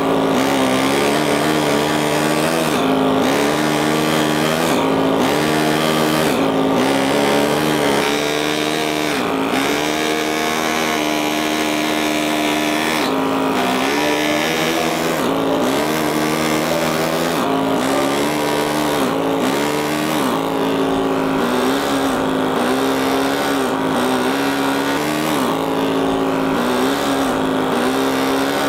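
Handheld power tool working a stone block, running steadily with its pitch dipping briefly every second or two as it is pressed into the stone.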